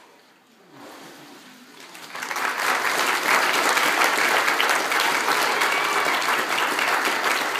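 Church congregation applauding, breaking out about two seconds in and then holding steady and loud.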